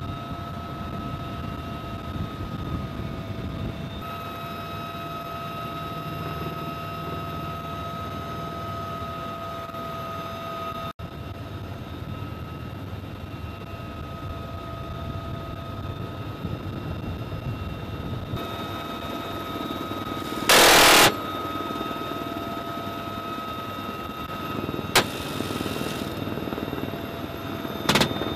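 UH-1Y Venom helicopter heard from inside the cabin: a steady turbine whine over the rotor and airframe rumble. About 20 seconds in, a very loud burst of machine-gun fire lasts well under a second, and single sharp shots follow near the end.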